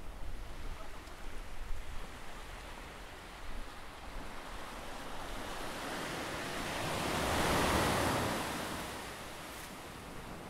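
Ocean surf washing on the beach: a steady wash of waves, with one wave building up and breaking in the second half, the loudest moment, then fading away.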